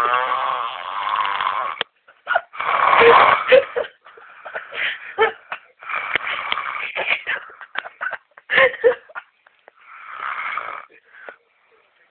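Snoring: about four long snores a couple of seconds apart, with short snorts between them.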